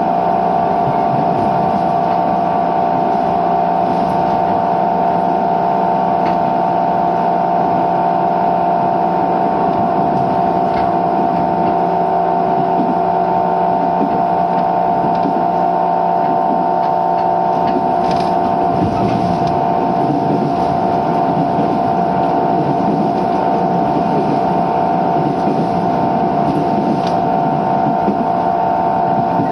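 Motor-generator (MG) of a JR 205 series 600-subseries electric train car giving a loud, steady whine, an abnormal MG noise, over the train's running and rolling noise. The whine holds one pitch throughout, with the rumble of the running gear growing a little heavier after about eighteen seconds.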